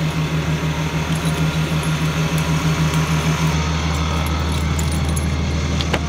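A car engine idling steadily with a low pulsing note. The deepest part of the sound grows stronger about halfway through.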